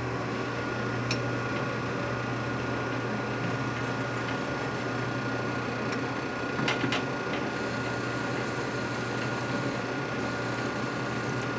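A machine tool's motor running steadily while a hole is drilled through the back of a part, with a low hum, a thin steady whine above it, and a few light clicks.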